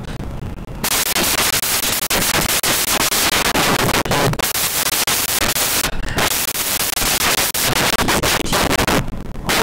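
Crackling fire sound effect: a loud, dense crackle and hiss that comes in about a second in and dips briefly a few times.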